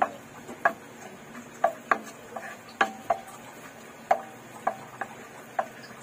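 A wooden spoon stirring minced garlic in oil in a non-stick wok, knocking against the pan about nine times at uneven half-second intervals.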